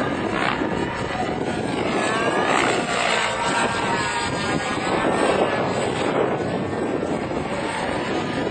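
Glow-fuel (nitro) engine and main rotor of a Raptor 90 radio-controlled helicopter in flight, a continuous whining buzz whose pitch sweeps up and down a few seconds in.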